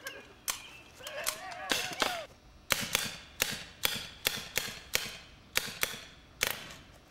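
A staged gunfight: a rapid string of sharp gunshots, irregularly spaced at about two a second, each with a short ringing tail.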